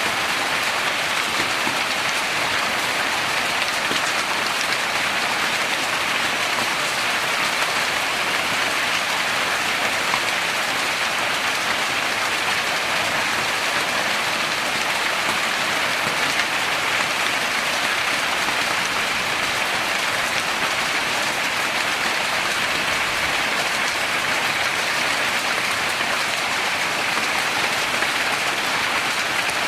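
Heavy storm rain pouring down in a loud, steady, unbroken hiss.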